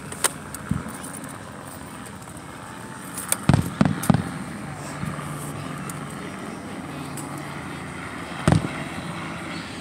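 Aerial firework shells bursting in sharp booms: one or two just after the start, a quick run of three about three and a half to four seconds in, and another about eight and a half seconds in.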